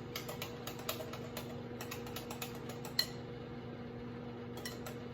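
Seasoning shaken into a bowl of batter: a run of light, irregular clicks with a sharper click about three seconds in. A steady electrical hum runs underneath.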